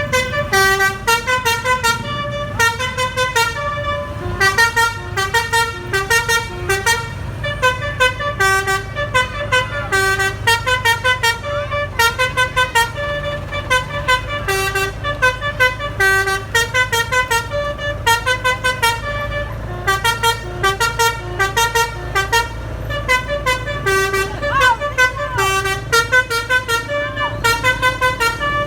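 Basuri telolet multi-tone air horn on a bus playing a melody of short, quick notes in a long run, over the steady low hum of the bus engine.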